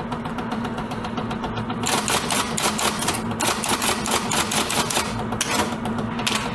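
Typewriter keys clacking in a rapid even run of sharp strikes, about six a second, fainter for the first two seconds and then louder, over a steady low hum.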